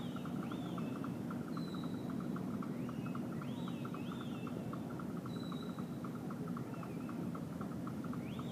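Handler's whistle commands to a working sheepdog: short rising-and-falling whistles in groups of two or three, with the odd single flat whistle, repeated every few seconds, over a steady low hum and a fast, even ticking.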